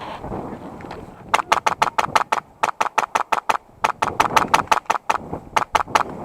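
Airsoft gun with a PolarStar Block II HPA engine firing full-auto bursts, sharp cracks at about ten shots a second, in five bursts with short pauses between them, starting about a second in.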